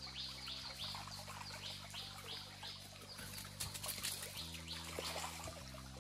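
A bird calling in rapid series, a short falling note repeated about two to three times a second, breaking off a little past halfway.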